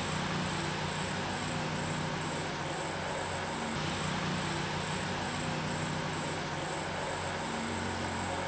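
Steady ambience: insects droning at a constant high pitch over a low, even hum.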